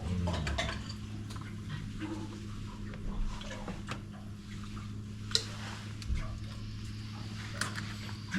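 A steady low hum with scattered light clicks and taps, the sharpest about five seconds in.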